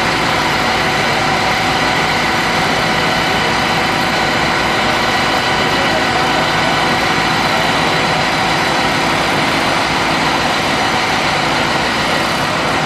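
An engine running steadily at a constant speed, with a steady hum of several fixed tones over a rushing noise.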